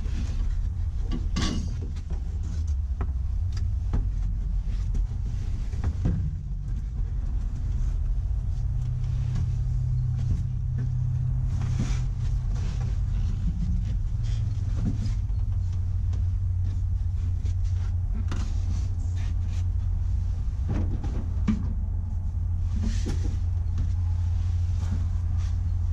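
A car's plastic dashboard being lifted and worked out of the interior: scattered knocks, clicks and scrapes of hard plastic against the car. Under them runs a steady low hum.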